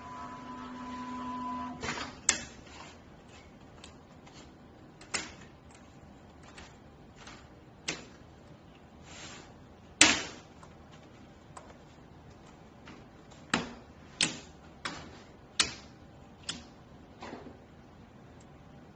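Automatic template sewing machine running with a steady hum that stops about two seconds in. Then comes a series of sharp clacks from clear plastic sewing templates being lifted, opened and set down on the machine table.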